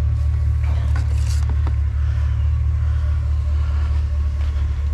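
Steady low hum of an idling pickup truck engine, with a brief clatter of handled metal oil cans about a second in.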